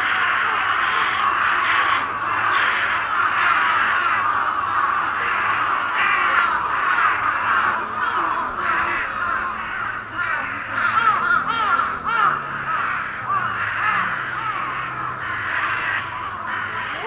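A large flock of crows cawing continuously, many harsh calls overlapping into a dense chorus with no break.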